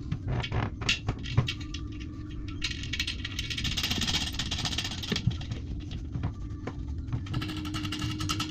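Hands working at the toilet cistern's underside and water-supply connection: light metallic clicks and rattles of the fittings being handled. About three seconds in comes a stretch of rapid fine ticking with a hiss.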